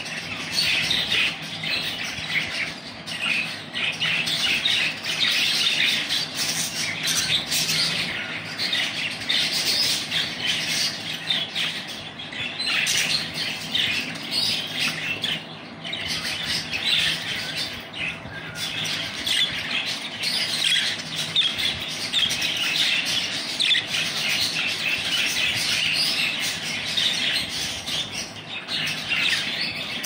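A flock of caged budgerigars chattering: a dense, unbroken mix of chirps, warbles and squawks, with a flutter of wings now and then.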